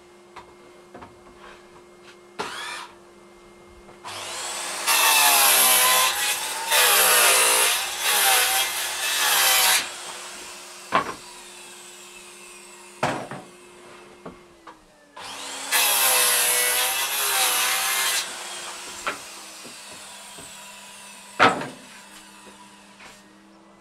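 Makita circular saw cutting through wood twice, each cut several seconds long, the saw's pitch sagging and recovering under load, over the steady hum of a Henry vacuum running as dust extraction. A few sharp knocks between the cuts.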